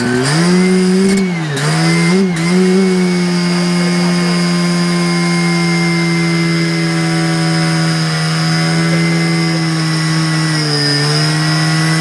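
Portable fire pump's engine throttled up from idle to high revs, dipping briefly twice in the first few seconds, then running at a steady high speed while it feeds water into the hose lines.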